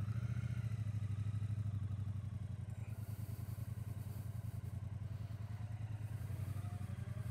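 Triumph Bonneville T120's parallel-twin engine running at low revs as the motorcycle rolls slowly, a steady pulsing exhaust note with no change in speed.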